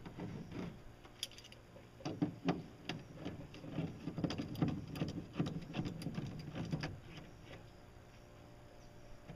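Pliers clicking and tapping against metal pipe clamps and PVC pipe as they are worked, in a busy irregular run of small clicks from about two seconds in until about seven seconds in, then only a few faint ticks.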